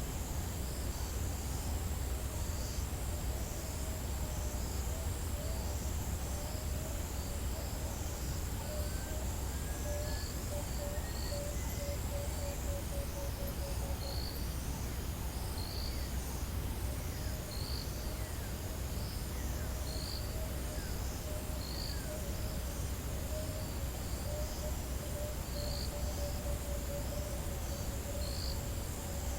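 Bush ambience of insects and animals calling. A high, continuous insect trill fades about halfway through and returns near the end. Under it run short regular chirps, a low pulsing call, a few faint bird whistles and a steady low rumble.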